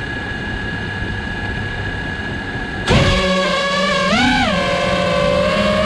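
5-inch FPV quadcopter's four brushless motors (TBS Ethix 2306 1750kv on 6S) spinning. They give a quieter steady whine, then about three seconds in throttle up suddenly into a loud buzzing hum, which swings up in pitch and back down about a second later.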